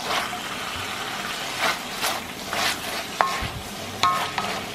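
Diced chicken sizzling in a frying pan while a wooden spoon stirs and scrapes through it, with a few light knocks of the spoon in the second half.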